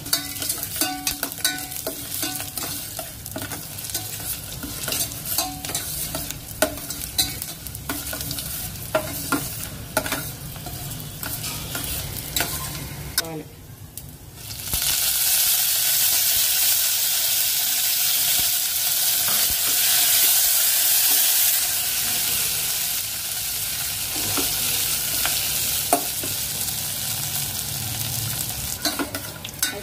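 A tempering (popu) of chana dal, urad dal, cumin and mustard seeds frying in hot oil and stirred with a spoon, with many sharp clicks over the sizzle. About halfway through the sizzle turns into a loud, steady hiss.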